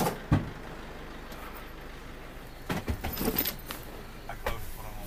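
Luggage being handled in a minivan: a sharp knock and a heavy thud right at the start, then scattered clatter and rustling around three seconds in, over the van's low steady engine hum.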